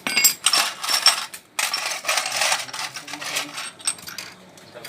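Clinking and rattling of small metal objects, in two long stretches with a brief pause about a second and a half in, then a few scattered clicks.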